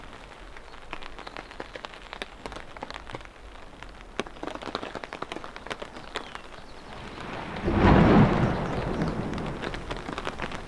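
Rain pattering, with many separate drops striking close by. A roll of thunder swells about eight seconds in, becomes the loudest sound, and then rumbles away.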